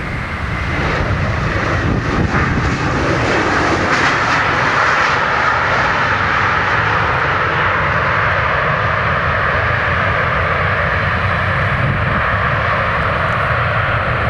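Boeing 737's CFM56 jet engines running loud and steady as the airliner rolls along the runway, the sound swelling about a second in and then holding.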